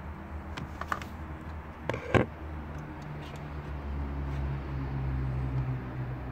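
Diesel fuel filter housing lid on a VW Golf 1.6 TDI being worked loose and lifted off the filter: a few small clicks and knocks, the sharpest about two seconds in, over a low steady hum.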